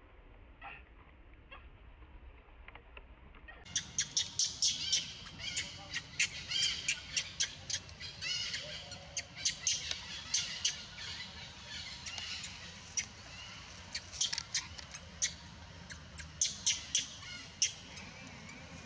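Baby long-tailed macaque crying: a long run of short, high-pitched squeals and screeches repeated in quick succession, starting about four seconds in after a few faint clicks.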